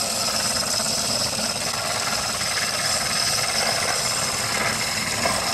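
Aerosol can of foaming AC evaporator cleaner spraying through its extension tube into the evaporator housing. It makes a steady, loud hiss as the foam is dispensed.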